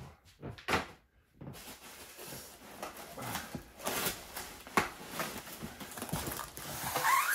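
Cardboard box being opened by hand: flaps scraping and rustling, with a few sharp knocks, and plastic bubble wrap crinkling near the end.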